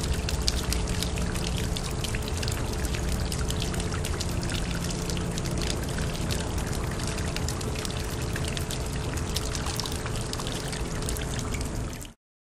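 Water pouring steadily down into a drain, splashing and trickling, with a deep gurgling rumble underneath; it cuts off abruptly near the end.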